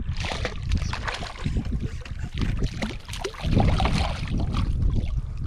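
Small hooked redfish thrashing and splashing at the water's surface as it is reeled to the side of a kayak, in irregular splashes over a low wind rumble on the microphone.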